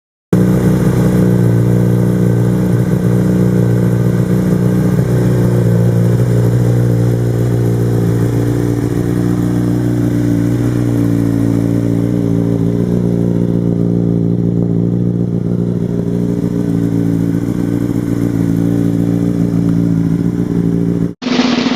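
Honda CBR600RR inline-four engine idling steadily. It cuts in abruptly just after the start and cuts off abruptly near the end.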